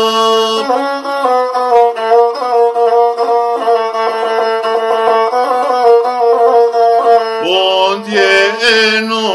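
Gusle, the single-string bowed Balkan fiddle, playing a fast, ornamented instrumental passage between sung verses of an epic-style chant.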